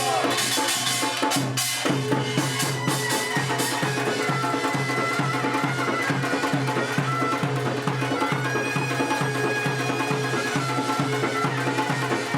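Korean pungmul folk band playing: a loud reedy wind melody over a steady, even drum beat.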